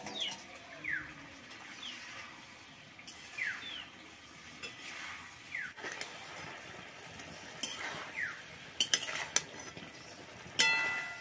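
A metal spatula scraping and knocking against a metal wok while fish curry is stirred, with a sharp ringing metallic clink near the end.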